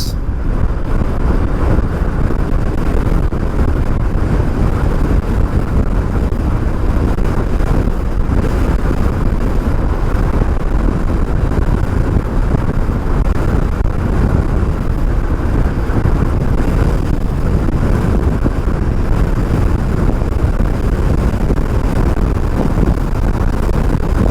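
Wind rushing over a helmet-mounted microphone on an electric bike at speed: a loud, steady, low rumbling noise.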